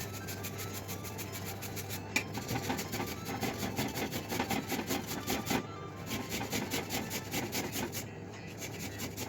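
Food being grated by hand on a metal grater: quick, repeated rasping strokes that pick up about two seconds in.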